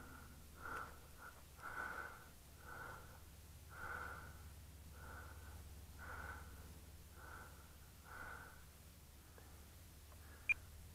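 A person breathing close to the microphone, soft regular breaths about once a second, over a faint low hum. A single short high click sounds near the end.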